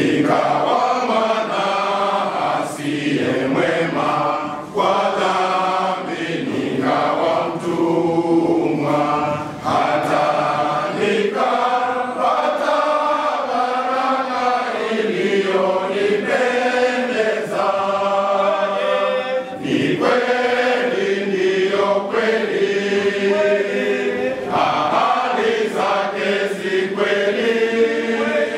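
Men's choir singing a Swahili hymn together.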